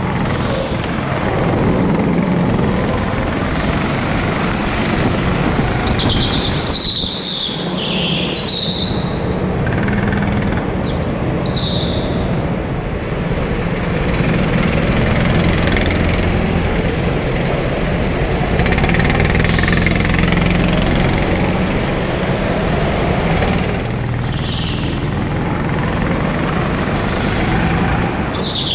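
Go-kart engines running inside a karting hall: the onboard kart's small engine drones steadily, with other karts' engines close by. A few short high squeals come about seven, nine and twelve seconds in.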